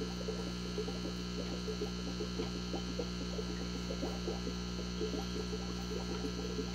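Steady electric hum of an aquarium air pump, with many faint, irregular small pops over it.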